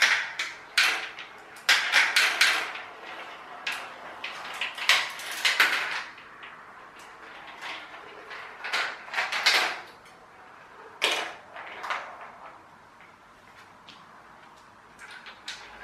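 Glass marbles clattering and rolling down a plastic marble run tower, in bursts of rapid clicks and rattles with short pauses between, busiest in the first half.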